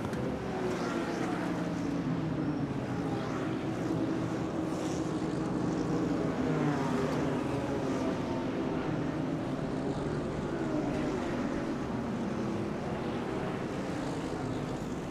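Racing car engines running steadily at low revs, their pitch rising and falling gently.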